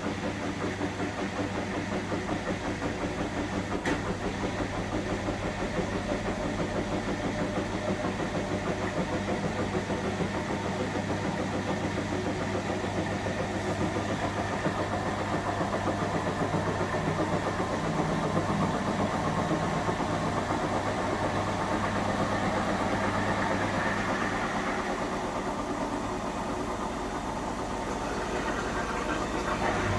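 Indesit washing machine drum on its final spin, the motor running with a steady hum and fast even pulsing at one pitch. The spin speed sounds like barely 800 to 1000 rpm rather than the 1200 it is set for, which the owner puts down to an unbalanced load.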